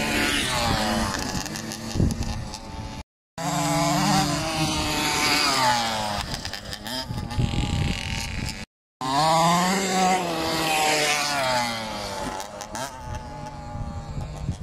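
KTM SX50 mini motocross bike's small two-stroke single-cylinder engine revving up and down as it is ridden, its pitch rising and falling with the throttle. The sound drops out briefly twice.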